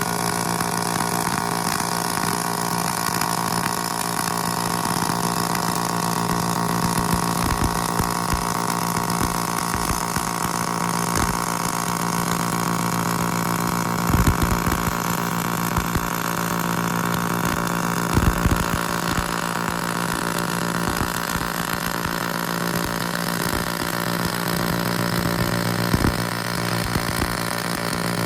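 Robotic arc-welding cell: a steady machine hum, with a few short, louder crackles spread through it.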